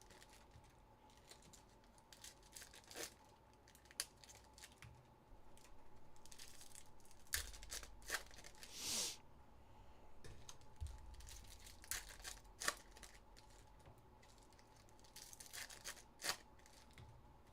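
Faint tearing and crinkling of trading-card pack wrappers, with scattered light clicks and one short, louder tearing burst about nine seconds in.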